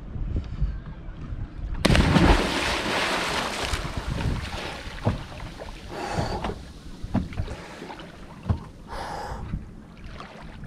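Water rushing and splashing along the hull of a Hanse 385 sailing yacht under way, with wind on the microphone. A sudden loud rush of water comes about two seconds in and eases off over the next couple of seconds, followed by scattered knocks and splashes.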